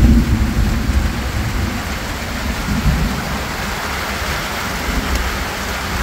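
Heavy rain falling steadily, with a deep low rumble that is loudest at the start and eases off after about two seconds.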